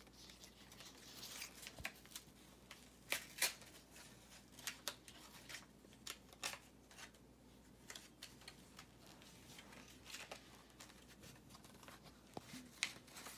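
A toy's cardboard-and-plastic packaging handled and pried open by hand, giving irregular sharp crackles and clicks, the loudest pair a few seconds in.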